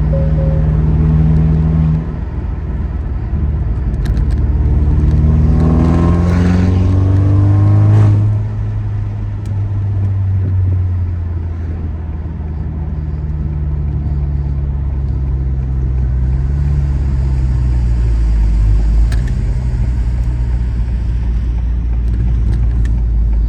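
2022 Acura TLX's 2.0-litre turbocharged four-cylinder, straight-piped with a downpipe and muffler delete, accelerating with its pitch rising for several seconds. The pitch drops suddenly about eight seconds in, and the engine then runs on at a steady drone.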